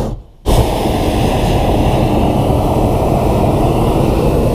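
Hot air balloon's propane burner firing, a loud steady roar of flame. The roar breaks off briefly near the start and comes straight back on.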